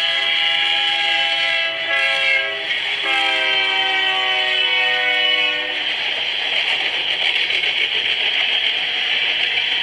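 Multi-chime air horn of a BNSF diesel freight locomotive sounding long, short, long at a grade crossing, its pitch sliding down in the last blast as the locomotive passes. After the horn stops, about six seconds in, the steady rolling noise of covered hopper cars on the rails.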